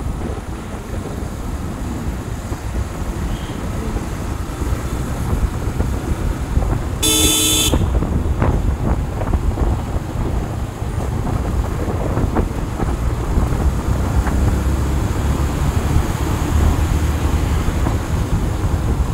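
Steady road traffic noise with a low rumble, and one short vehicle horn blast about seven seconds in.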